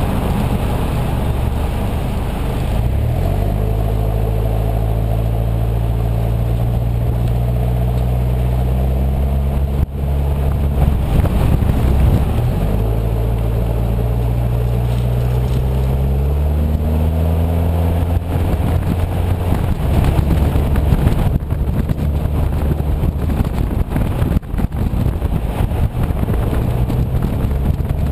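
Toyota 90 Series Prado's 3.0-litre 1KZ-TE turbo-diesel heard through a 3-inch aftermarket exhaust while driving. The engine note climbs in pitch as it accelerates, drops back at a gear change and climbs again, then settles into steady running with road noise.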